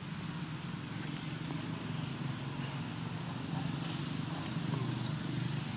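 A steady low motor hum, like an engine running at idle, with faint crackles of dry leaf litter as the macaques move and feed.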